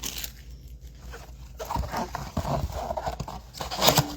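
A trading-card blaster box being opened and handled: cardboard and foil packs rustling and tapping, with a sharper clack just before the end.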